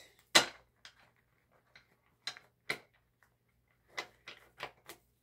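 A deck of oracle cards handled on a wooden tabletop: a series of sharp taps and clicks, the loudest about half a second in, then a few scattered ones and a quick run of four or five near the end.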